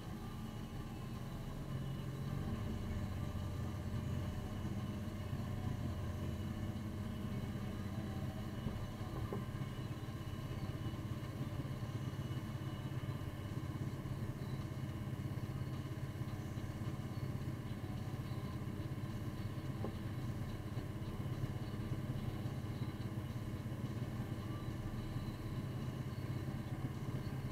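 Engine of a snowplowing machine running steadily under load, heard from inside the cab as a low hum that picks up slightly about two seconds in.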